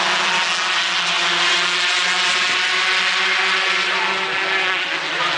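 Racing karts' Yamaha RD135 two-stroke engines buzzing steadily on the track.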